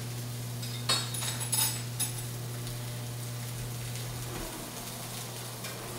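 A few sharp metallic clinks of cookware between about one and two seconds in. Under them run faint sizzling from cherry tomatoes blistering in a skillet and a steady low hum that fades out about four and a half seconds in.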